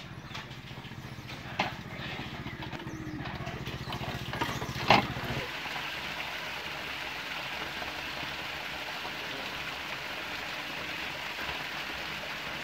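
A motorcycle engine running, with two sharp knocks, the second the loudest about five seconds in; then the steady splashing of a small waterfall pouring into a rock pool takes over.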